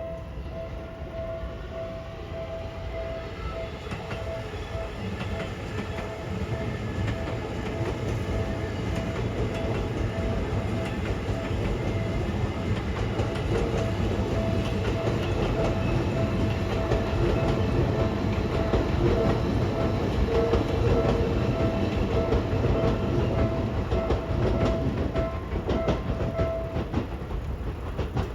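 Level-crossing warning bell clanging steadily as a train passes over the crossing. The train noise builds to a peak about two-thirds of the way through and then eases. The bell stops shortly before the end.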